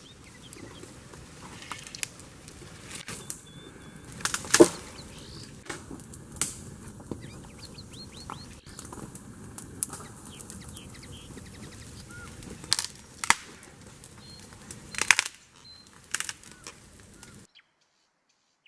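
Campfire of branches crackling, a steady hiss broken by sharp pops, the loudest about four and a half seconds in and a cluster near the end. The sound cuts off suddenly a second before the end.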